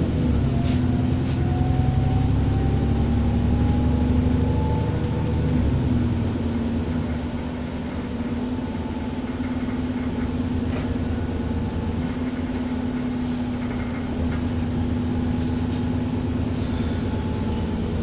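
Alexander Dennis Enviro400 double-decker bus heard from inside, pulling hard with its engine thrashing and a squeal that rises steadily in pitch. About six seconds in the heavy engine note drops away, and the bus runs on more quietly with a steady drone.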